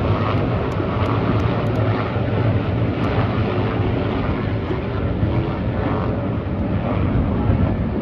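Race motorcycles running on the track, a steady loud engine noise without a clear pass-by.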